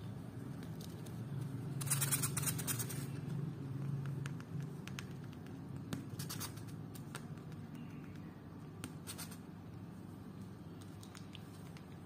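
Hamster gnawing at the torn edge of its cage wall: three bursts of rapid scratchy bites, the first and loudest about two seconds in, with single ticks between them over a steady low hum.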